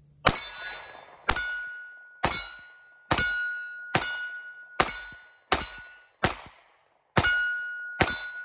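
Ten shots from a Taurus GX4 9mm pistol fired at steel plates, at roughly one a second. After most shots a steel plate rings with a steady high tone, marking a hit; one or two shots have no ring, which are misses.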